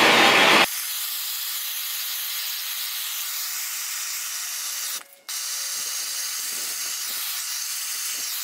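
Handheld gas torch with its flame burning steadily as it heats a flexible plastic strip to soften it for bending. It is loud and full at first, then drops abruptly to a steady high hiss under a second in, with a short break about five seconds in.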